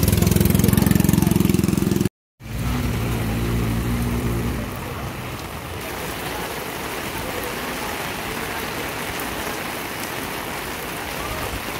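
An off-road 4x4's engine running steadily. It breaks off sharply about two seconds in, comes back for a couple of seconds, then gives way to a steady hiss of heavy rain.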